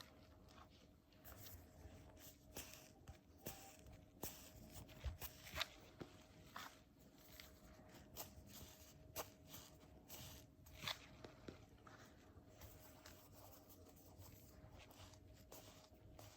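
Faint handling noise: scattered soft clicks and short rustles of hands picking up and squeezing foam squishy toys, over a faint steady hum.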